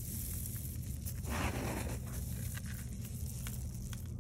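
Cracked corn grits rustling and clicking as a hand scoops them and lets them run back into the basin, with a louder rush of falling grain about a second in. A steady low hum sits underneath.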